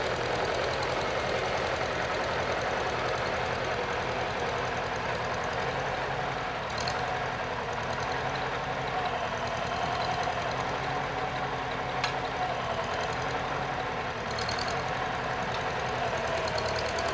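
Farmall Super C tractor's four-cylinder engine running steadily as it drags a blade through loose tilled dirt. The engine note sags briefly a few times as the load comes on.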